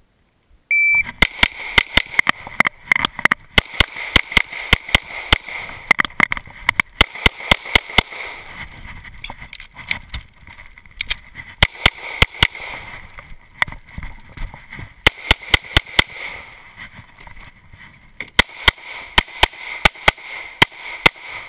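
A short electronic beep about a second in, the shot timer's start signal, then rapid strings of 9mm Beretta M92 pistol shots. Many shots come in quick pairs and runs, with a few short pauses between strings.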